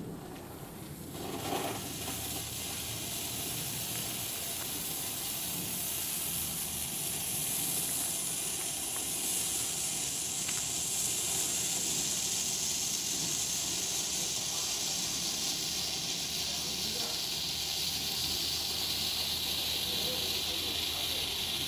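Blackboxx purple Bengal light firework catching about a second and a half in, then burning with a steady hiss that slowly drops in pitch.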